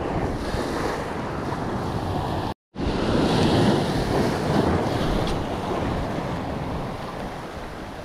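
Sea waves washing and wind buffeting the microphone, a steady rushing noise. The sound drops out completely for a moment about two and a half seconds in.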